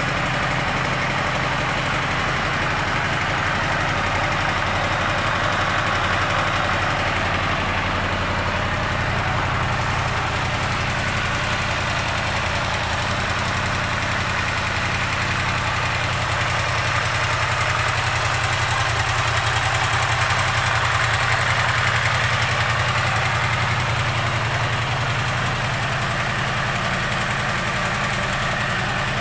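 2016 Yamaha YZF-R1M's stock crossplane inline-four engine idling steadily.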